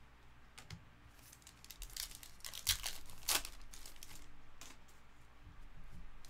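Trading cards and their packaging being handled: a burst of crinkling and rustling between about two and three and a half seconds in, with softer rustling and card sliding after.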